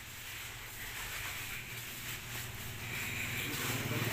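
Quiet background ambience of steady hiss, with a low engine hum that grows louder near the end.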